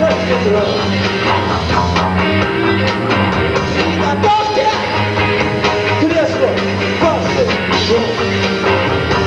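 Rock music from a band playing loud and steady, with a regular beat.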